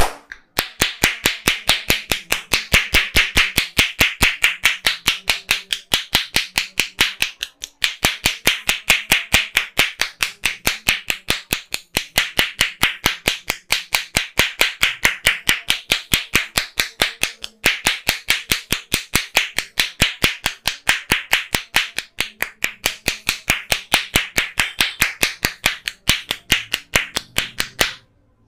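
Rapid, even hand claps of a percussive head massage, the barber's hands striking the head about four to five times a second. They come in runs of several seconds with short breaks.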